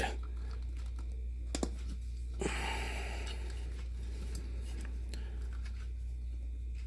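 A few faint clicks and a short rustle as the plastic snow globe parts and figurine are handled and fitted together, over a steady low hum.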